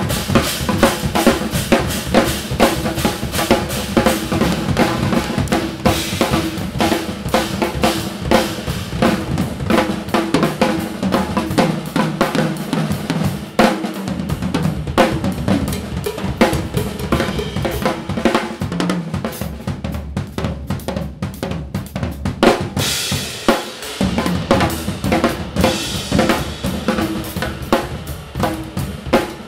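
Two drum kits played together in a free improvisation: busy, fast strikes on bass drum, snare, toms and cymbals, with the cymbals rising loudly about three-quarters of the way through.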